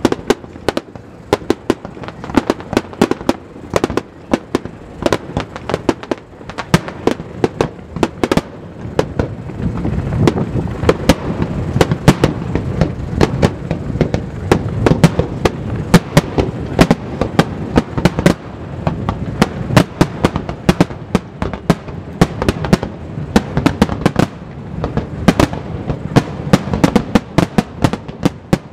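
Fireworks display: a rapid barrage of shell bursts, dozens of sharp bangs and crackles in quick succession over a continuous rumble, which is heaviest in the middle stretch.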